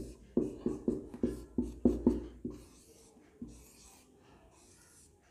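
Marker pen drawing on a whiteboard in quick short strokes: about nine in the first two and a half seconds, then one more a second later.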